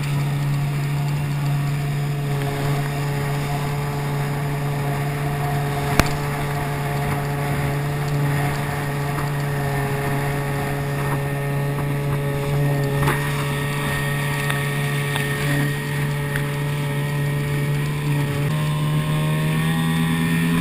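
A small outboard motor pushes an inflatable boat along at speed with a steady engine note, over a hiss of wind and water. The engine note steps slightly higher near the end. A single sharp tap comes about six seconds in.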